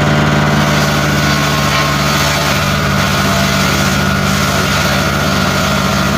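Wood crusher (log chipping machine) running steadily: a constant machine hum with a steady high whine above it.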